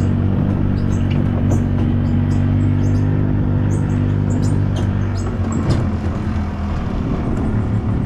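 Golf cart driving steadily, its motor running with a low, even hum. Small birds chirp now and then.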